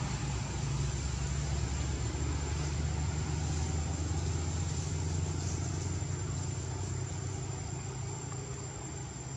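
A steady low engine-like rumble, as of a motor running, easing off a little near the end, under a constant thin high-pitched whine.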